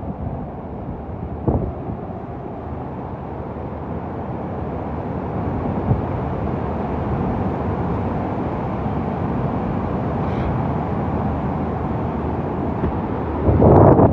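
Hurricane wind rushing, a steady noise that builds a little a few seconds in and then holds, with hard gusts buffeting the microphone near the end.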